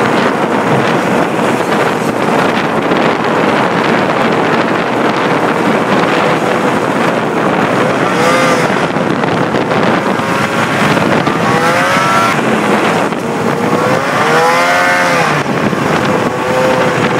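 Snowmobile engine running hard as the sled ploughs through deep snow. In the second half the engine note swells and falls a few times as the throttle is worked.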